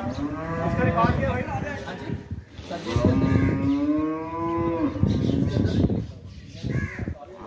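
Dairy cows mooing: two long moos, the first at the start and the second beginning about three seconds in, each held at a fairly steady pitch.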